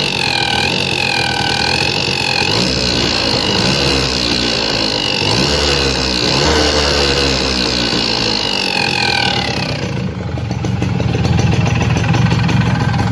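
Suzuki RC100's single-cylinder two-stroke engine running, its speed rising and falling through the middle and settling to a steadier low idle about ten seconds in. A high wavering whine runs over it and drops away just before the engine settles.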